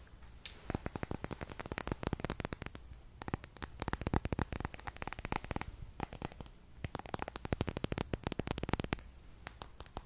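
Long fingernails tapping and scratching quickly on a mascara tube: three runs of fast, crisp clicks with short pauses between.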